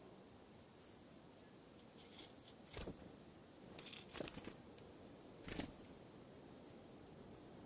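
Small birds, dark-eyed juncos and a chickadee, hopping and pecking around a metal seed tray and the evergreen above it: three short sharp taps roughly a second and a half apart, with a few fainter ticks, over near silence.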